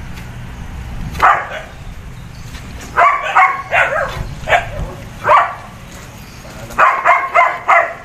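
A dog barking repeatedly in short clusters of barks, over a low steady hum.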